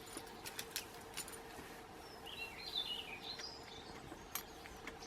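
A bird sings a short twittering phrase in the middle, over faint scattered ticks and clicks from the small solid-fuel stove heating a titanium cup of water nearly to the boil.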